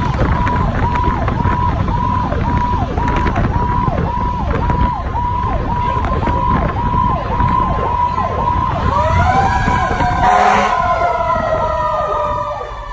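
Fire truck's siren cycling about twice a second, each cycle a held high note that drops sharply, over the truck's engine rumble. About nine seconds in, a second siren tone rises in pitch and then slowly falls away, with a short loud blast just after it.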